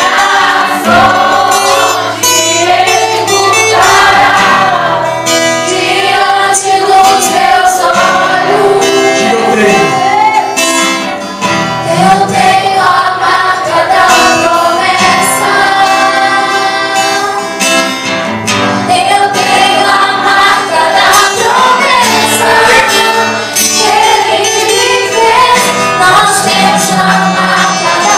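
Woman singing a gospel song into a microphone, amplified over a PA, with acoustic guitar accompaniment.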